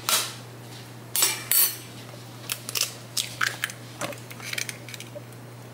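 An egg cracked against the rim of a stainless steel pot: two sharp taps about a second in, then scattered small clicks as the shell is broken open and the whisk touches the metal.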